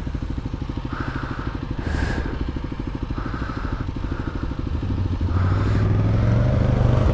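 Kawasaki KLR250's single-cylinder four-stroke engine idling with an even, rapid pulse. About five seconds in, an ATV's engine grows louder and steadier as it comes up and passes close by.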